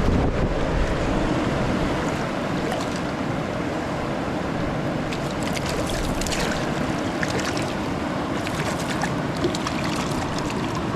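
Steady rush of river current flowing over rocks, with a few faint clicks in the middle.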